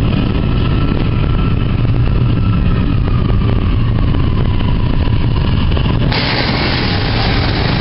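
Double-stack intermodal container cars rolling past at close range: a loud, steady low rumble of steel wheels on rail, with faint thin ringing tones above it. About six seconds in, a loud hiss suddenly joins and stays.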